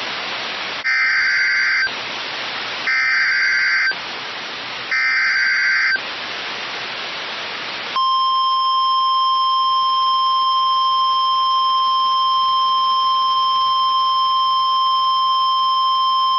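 NOAA Weather Radio alert header: three short bursts of SAME digital data tones separated by radio hiss, then the steady 1050 Hz warning alarm tone held for about nine seconds, signalling that a new warning is about to be broadcast.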